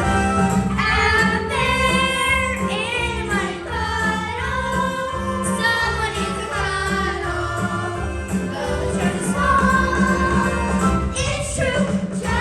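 A group of young performers singing a musical-theatre number together over instrumental accompaniment with a steady beat.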